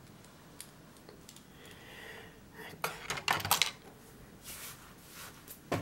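LEGO plastic pieces clicking and clattering as hands take off and refit a brick-built staircase module, with a cluster of clicks about three seconds in and another near the end.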